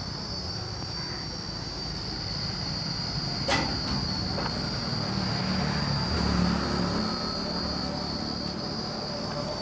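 Steady high-pitched drone of insects over a low rumble of road traffic that swells a little past the middle, with a single sharp click about three and a half seconds in.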